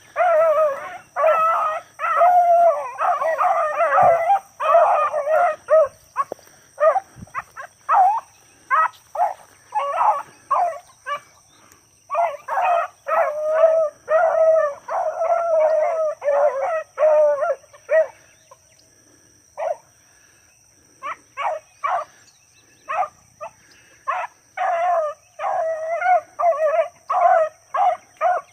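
Hunting dogs baying while running, in quick strings of calls that thin out to scattered single calls for a few seconds past the middle, then pick up again. A steady high insect drone runs underneath.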